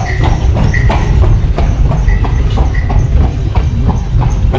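Horse-drawn carriage rolling over stone paving, heard from inside the cab: a continuous rattling clatter and low rumble from the wheels and body, with the clop of the horse's hooves.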